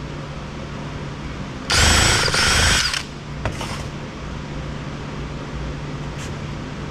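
Electric screwdriver running in one burst of just over a second, with a whining motor note, followed later by a couple of faint clicks. A low steady hum sits underneath throughout.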